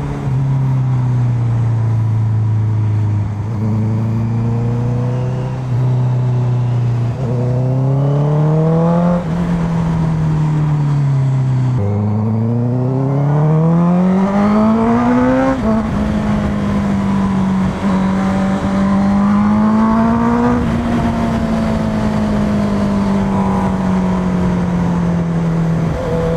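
Honda CBR650F inline-four engine running under way, heard from the bike. The revs rise and fall gently at first, climb steeply for a few seconds from about halfway, drop suddenly at an upshift about two-thirds in, then hold fairly steady and ease off slowly near the end.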